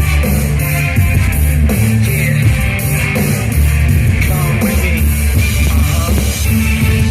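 Loud music with a steady beat and sustained bass notes, played as the soundtrack of a fireworks display.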